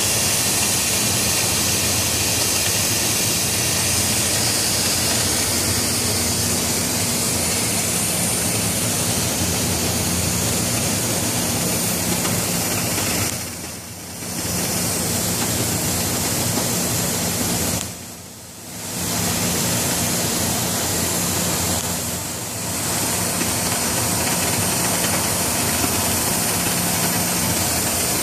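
Steady loud hiss with a low hum underneath: the running noise of a steel plate-cutting shop with oxy-fuel flame-cutting equipment and machinery. The level dips briefly three times in the second half.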